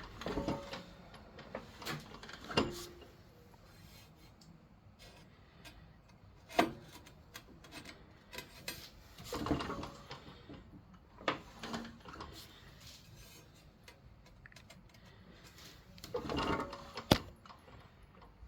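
Metal bar stock being slid and nudged into place on a chop saw's bed, with scattered light knocks and short scraping rubs of metal against metal; the saw is not running.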